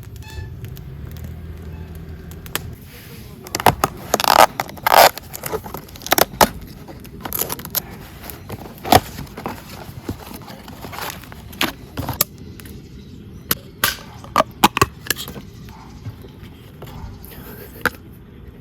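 Firewood crackling and popping as it catches in a campfire: irregular sharp pops and snaps, a cluster of the loudest about four to five seconds in. A faint low hum sits under the first two seconds.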